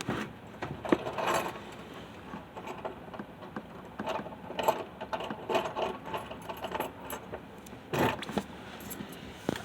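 A bunch of keys jangling, with irregular metal clicks and rattles of a door's deadbolt lock being worked with a key; one sharp click about a second in.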